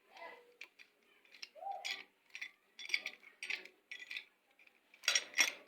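Metal hand tools clicking and clinking against each other and against the scooter's parts, in an irregular string of sharp knocks, the loudest two close together near the end.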